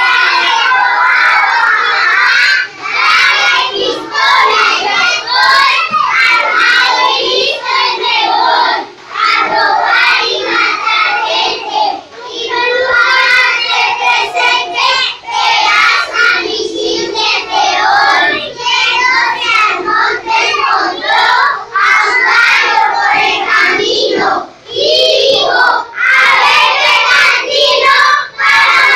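A group of young children singing together in chorus, loud and continuous, with a few short breaks between lines.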